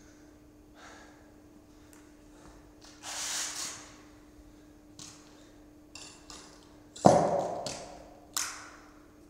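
A loaded barbell drops to the floor with a loud thud about seven seconds in. Before it come a few light knocks and a hard, noisy exhale; another short exhale follows near the end.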